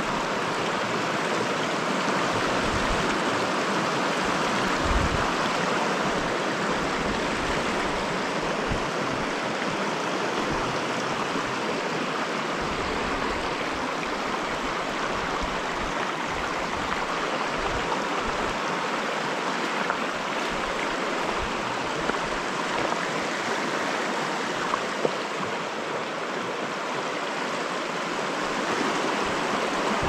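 River water rushing steadily over rocks, a continuous even hiss and gurgle.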